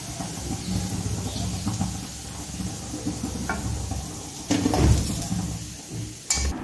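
A wire spider strainer knocking and clinking against an iron frying pan and a steel plate as fried pieces are lifted out and moved, with a louder knock about four and a half seconds in and another near the end.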